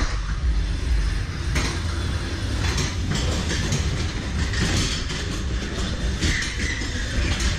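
Ghost-train car rolling along its track through the dark ride: a steady low rumble with scattered clattering knocks from the wheels and track.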